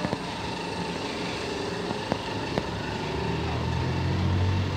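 A motor vehicle engine running, growing louder in the second half, with a few short clicks.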